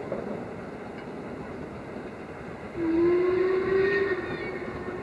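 LMS Stanier Black Five steam locomotive working uphill, a steady distant rumble, then about three seconds in it sounds its hooter-type whistle: one long note of just over a second that rises slightly and then tails off.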